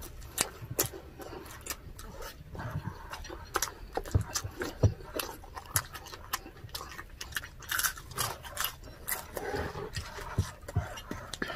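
Close-miked eating sounds: chewing and wet mouth clicks and smacks, with an occasional tap of a spoon or fork against a ceramic bowl.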